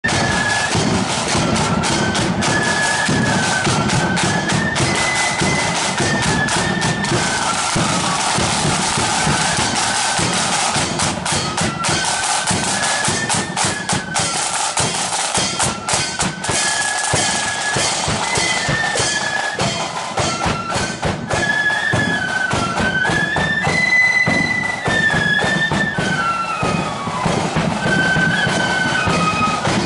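Marching flute band playing a tune: flutes carry a high melody over side drums played with many rapid strokes, and a bass drum.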